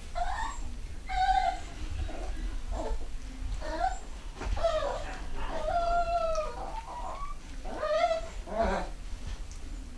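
Three-quarter Schnauzer puppies whining and yelping: a string of short high-pitched cries, with one longer, steady whine about six seconds in.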